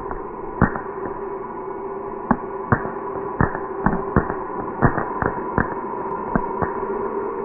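Crackling fountain firework: about a dozen sharp, irregular cracks over a steady droning tone.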